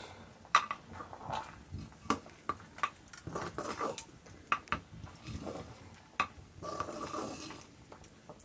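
Long wooden stick stirring a white mixture in a metal cooking pot, swishing through it and knocking and scraping against the pot's sides at irregular intervals.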